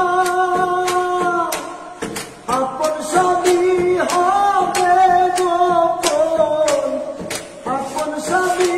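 A man singing a Bengali song unaccompanied, holding long drawn-out notes with a short break for breath about two seconds in. Sharp hand taps on a hard surface keep a steady beat under the voice.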